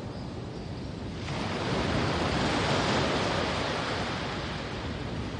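Ocean surf on a sandy beach: a wave breaks about a second in, its rush building and then slowly fading.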